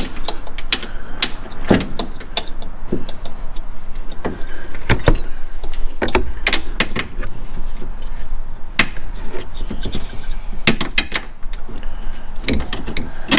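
Irregular clicks and knocks from hands and tools working on a side-by-side, with many sharp strikes unevenly spaced.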